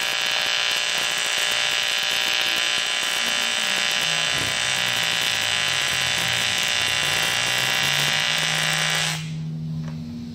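Electric arc welding: the arc runs with a steady crackling buzz, then cuts off abruptly about nine seconds in when welding stops, leaving a faint low hum.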